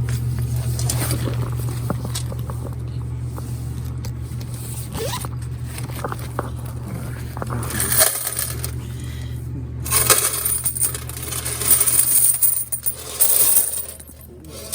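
Coins being collected from a vending machine's coin box, clinking and pouring, loudest in several bursts from about ten seconds in. A low steady hum runs underneath.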